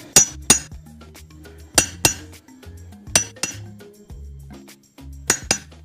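Sharp metal-on-metal taps in pairs, four pairs about a second and a half apart, each tap ringing briefly, from work on the transmission parts. Background music with a low bass line runs underneath.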